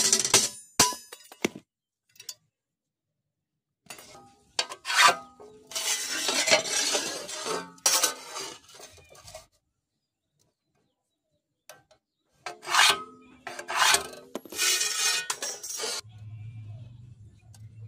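Sheet iron and a steel rule scraping and rubbing on a railway-rail anvil as they are slid into place, in two spells of a few seconds, after a few clinks at the start. A low steady hum comes in near the end.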